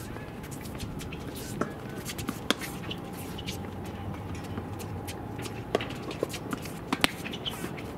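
Sharp pops of tennis balls being struck and bouncing on outdoor hard courts, scattered irregularly over a low steady background noise; the loudest come about two and a half, six and seven seconds in.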